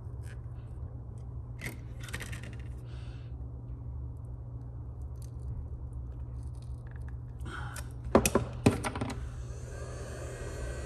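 Plastic pry tools clicking and scraping against a phone's battery and frame, in scattered small taps with two sharper clicks about eight seconds in. A steady hiss starts near the end.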